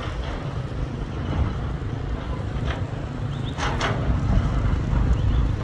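Motorcycles running as they cross a sandy riverbed, heard as a steady low rumble with no clear engine note, and a couple of short sharper sounds about three to four seconds in.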